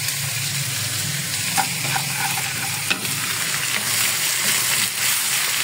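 Chicken pieces and sliced onions frying in oil in a pan, a steady sizzle, with a few faint clicks.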